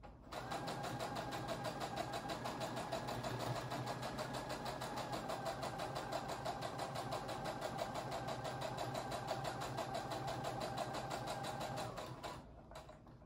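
Brother electric sewing machine running at a steady speed, stitching a seam through layered cotton fabric with a fast, even stitch rhythm. It starts just under half a second in and stops about a second before the end.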